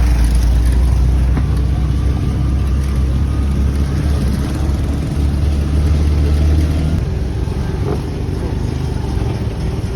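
Vehicle engine and road rumble heard while riding in a moving vehicle: a loud, steady low drone that eases about seven seconds in.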